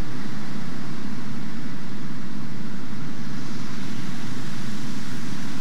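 River rapids: a steady, unbroken rush of whitewater.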